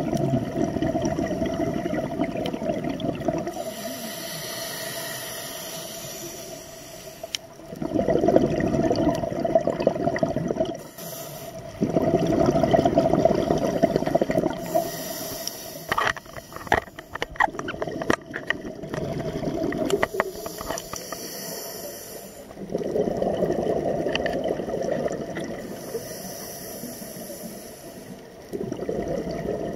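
Scuba diver breathing through a regulator: a hiss on each inhale, then a few seconds of bubbling rush as the exhaled air leaves, repeating every four to five seconds. A run of sharp clicks comes near the middle.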